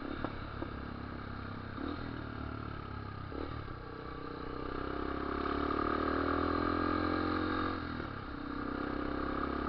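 Yamaha Lander motorcycle engine running on the move; its note rises as it accelerates about four seconds in, holds steady, eases briefly near eight seconds, then picks up again.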